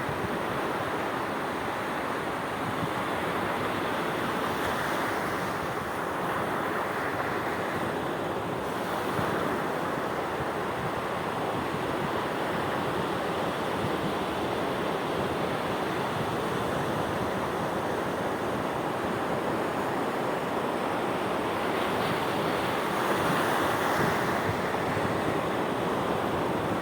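Sea waves breaking and washing on the shore in a steady rush, swelling louder now and then.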